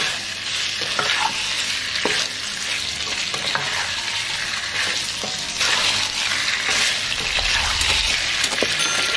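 Catfish pieces in curry paste sizzling in hot oil in a nonstick wok, with a spatula stirring and scraping through them and scattered clicks as it knocks against the pan.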